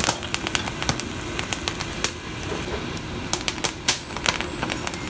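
Open fire crackling with tomatoes and green chilies roasting on it: irregular sharp pops and snaps over a low hiss.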